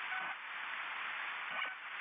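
Steady hiss of broadcast static, with two faint, brief pitched sounds: one about a quarter second in and one near the end.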